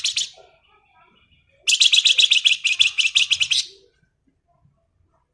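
A flamboyan songbird singing: a short burst of high notes, then a fast, dense rattling trill of about ten notes a second lasting about two seconds, the rapid 'ngebren' song that bird-keepers prize.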